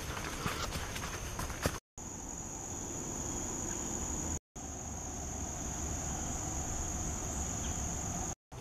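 Steady high-pitched trilling of insects in the woods, with footsteps on the trail in the first two seconds. The sound cuts out completely three times, briefly each time.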